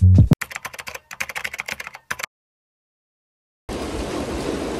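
A quick run of light, irregular clicks and taps for about two seconds, then a sudden gap. Hail begins falling near the end as a steady hiss.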